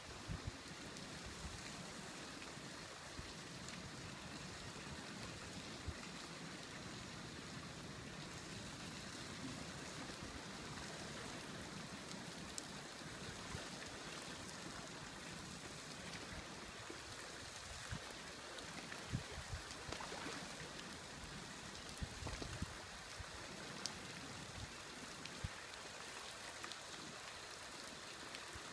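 Creek running thick with floating broken ice: a steady hiss of moving water and drifting ice, with scattered sharp clicks and knocks.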